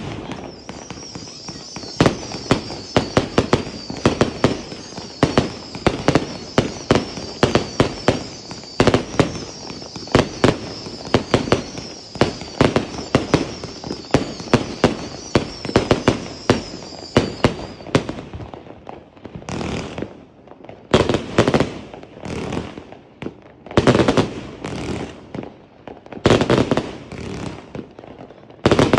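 A "Bite Of Death" 260-shot fireworks cake firing a rapid barrage of shots and aerial bursts, with a high wavering whistle over the barrage. About two-thirds of the way through, the whistle stops and the shots thin out into scattered clusters of bursts.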